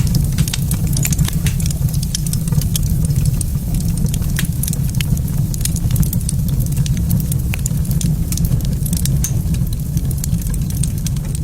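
Wood fire crackling in a fireplace: a steady low rumble with many sharp, irregular pops and snaps.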